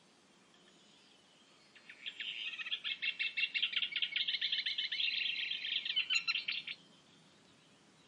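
Recorded song of a Eurasian reed warbler: a fast, chattering run of jittery notes, each repeated two or three times. It starts about two seconds in and stops at about seven seconds.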